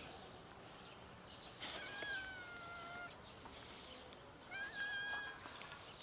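A cat meowing twice, in two long drawn-out meows: the first starts about two seconds in, and the second comes near the end.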